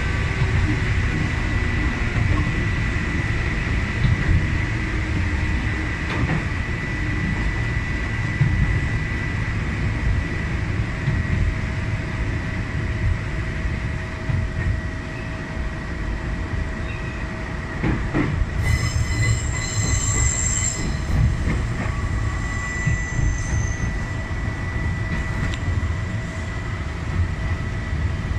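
Sangi Railway 801-series electric train running, heard from inside the driver's cab: a steady rumble of wheels on rail with a faint constant whine. About two-thirds of the way through, a high wheel squeal comes in for several seconds as the train takes a curve.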